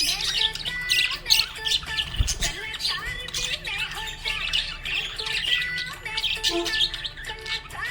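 Budgerigars chirping and warbling in a dense, continuous stream of quick chirps and squawks, with a low thump about two seconds in.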